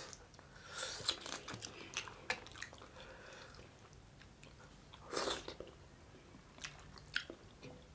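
Two people eating small whole fried fish and dhido by hand, close to the microphone: chewing and biting with crunches and sharp wet clicks. A cluster of crunches comes about a second in, and the loudest crunch about five seconds in.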